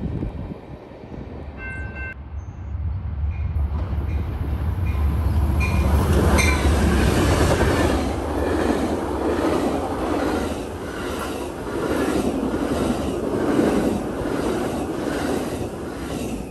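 Passenger train passing close at speed: a locomotive engine drone builds first, then the coaches go by with a steady rhythmic clickety-clack of wheels over rail joints.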